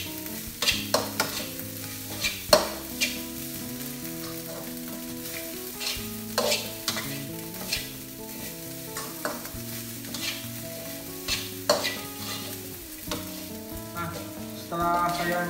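Spatula scraping and clacking against a wok as vegetable fried rice is stirred over the heat, under a steady sizzle. The clacks come irregularly, the loudest about two and a half seconds in.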